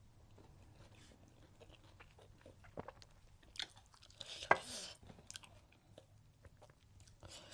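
Close-miked chewing and mouth sounds of a person eating dhindo with vegetable curry, with scattered soft crunches and clicks. The sharpest of these come about three, three and a half, and four and a half seconds in, followed by a short breathy hiss.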